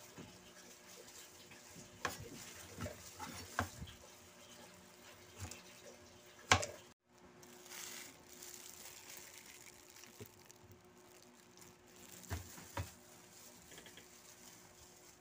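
Scattered knocks and clatter of food and utensils being handled on a cutting board and table, the sharpest knock about six and a half seconds in, with a faint steady hum underneath. The sound drops out briefly just after the sharpest knock.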